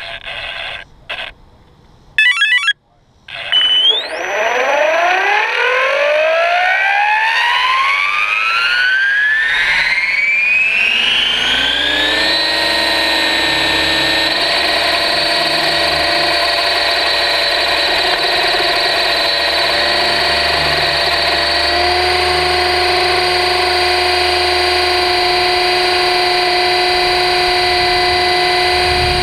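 Electric RC helicopter's motor and rotor spooling up: after a few short clicks and beeps, a whine with several pitches rises steadily for about eight seconds, then holds at a steady pitch at full head speed.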